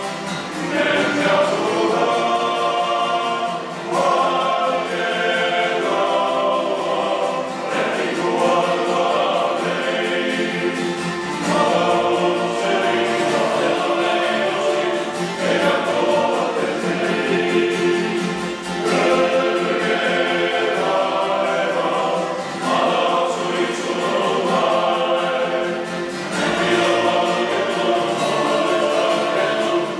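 Men's choir singing in several parts, with acoustic guitar accompaniment, in phrases of about four seconds each.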